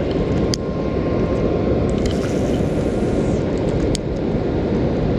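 Water pouring over a river spillway, a steady loud rush. Two sharp clicks cut through it, one about half a second in and one near four seconds.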